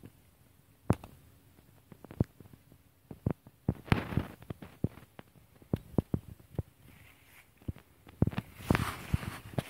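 Footsteps through a stand of tall oats, the stalks brushing and rustling, with irregular sharp clicks and snaps throughout. The rustling swells about four seconds in and again near the end.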